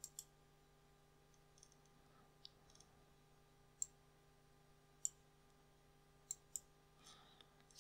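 A few soft computer mouse clicks over near silence: a quick pair right at the start, single clicks about four and five seconds in, and another quick pair near the end.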